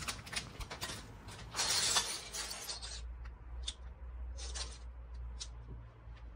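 Small plastic building bricks clattering onto a wooden table and clicking against each other as they are poured from a plastic bag and sorted by hand. There is a louder rush of rattling about one and a half seconds in, then only occasional single clicks.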